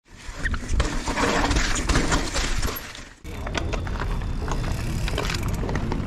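A loud noisy sound with a few sharp cracks, lasting about three seconds and cutting off suddenly. It is followed by the sound of a mountain bike on a dirt trail: steady tyre and wind noise with scattered clicks and rattles.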